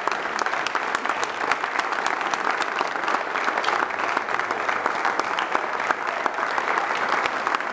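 A roomful of people giving a standing ovation: sustained, dense applause.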